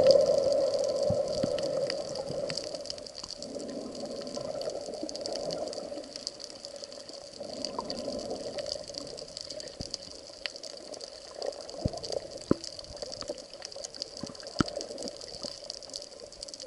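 Underwater sound heard through an action camera's waterproof housing: the churning rush of bubbles from a snorkeler's fin kicks, loudest at the start and fading over the first few seconds. After that a steady muffled underwater hiss with scattered sharp clicks.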